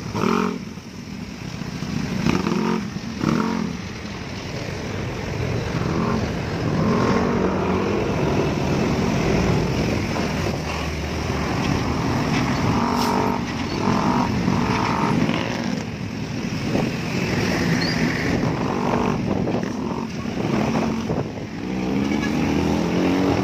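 Dense road traffic heard from a moving motor scooter: motorcycle and car engines running through slow, congested traffic, with an engine pitch rising near the end as one revs up.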